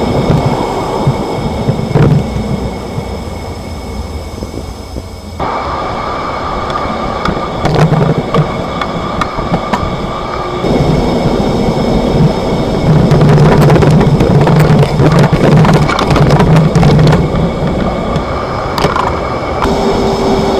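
Cabin noise of a 2025 Chevrolet Silverado 1500 Trail Boss on the move: steady road and drivetrain rumble with several sharp clunks. The clunks are the excessive leaf-spring noise the owner is documenting, felt through the floorboards and driver's seat.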